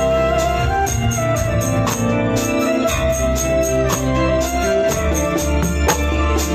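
Band music: held organ-like keyboard chords over a steady bass, with a tambourine keeping a regular jingling beat.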